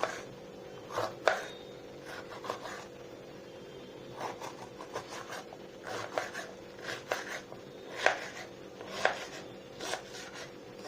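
Knife cutting capsicum on a chopping board: irregular knocks of the blade hitting the board, a dozen or so, with short pauses between.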